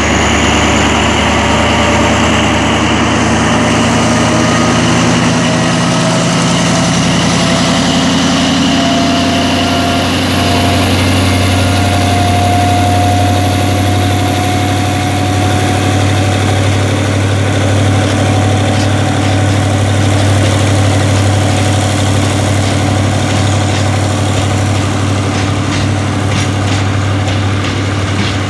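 Alsthom AHK diesel-electric locomotive running under power as it hauls a loaded ballast hopper train past, a deep steady engine hum with its pitch rising slowly. Near the end the wagon wheels start clicking over the rail joints.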